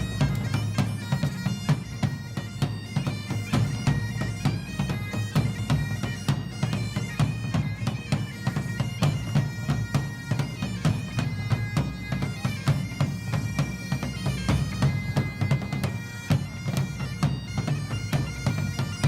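Bagpipes playing a quick tune over their steady low drone, with rapid ornamented note changes.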